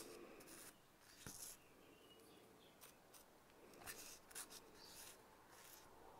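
Faint, short scratchy rustles of fingertips rubbing and pressing fine moss-green scatter material onto a glue-coated Styrodur foam block, repeated several times, a second or so apart.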